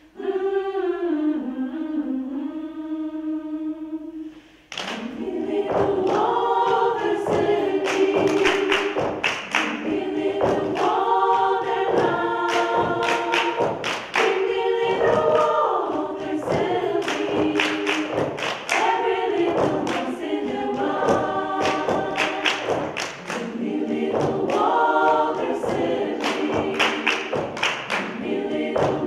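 Women's choir singing a cappella with rhythmic hand claps, the clapping and full singing starting suddenly about five seconds in. Before that there is a single held, wavering note.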